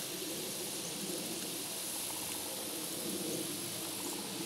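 Steady outdoor background ambience: an even hiss with a faint steady high-pitched band and a low hum, with no distinct events.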